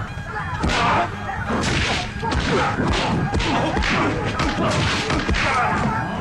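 Film fight sound effects: a rapid run of punch and kick impacts, about two a second, over the film's background score.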